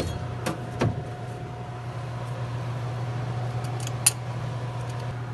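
A few light metallic knocks and clicks from a vending machine's refrigeration unit being slid out, over a steady low hum.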